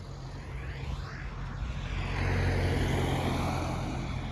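A car passing by: its noise swells to a peak about halfway through, then fades, over a steady low hum.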